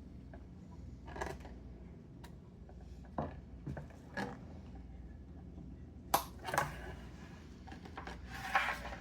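Knife and hands working trout on a cutting board during filleting: a scattering of short knocks, taps and scrapes, sparse at first and louder and more frequent from about six seconds in.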